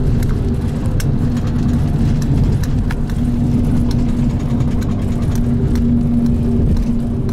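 Cabin noise inside a Van Hool Astromega double-decker bus on the move: a steady low drone of engine and road, with a humming tone that fades in and out and scattered light clicks.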